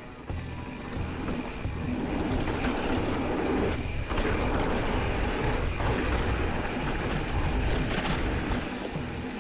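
Giant Trance 29er mountain bike rolling fast down a dirt singletrack: knobby tyres rumbling over the dirt and the bike clattering, mixed with wind rush over the helmet camera's microphone. It grows louder about two seconds in as speed builds.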